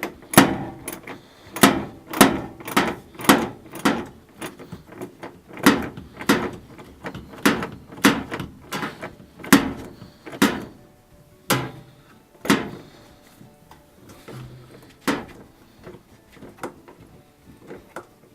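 Ratchet wrench working a 13 mm bolt on a washing machine's shock absorber: a series of sharp metallic clicks, about one or two a second, thinning out after about ten seconds.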